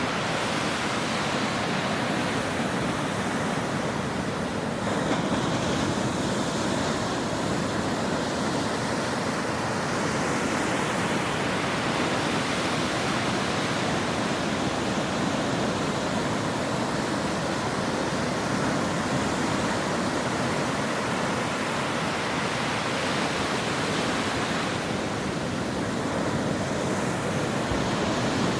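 Ocean surf breaking on a shore: a continuous rush of water noise that swells a few times as waves break.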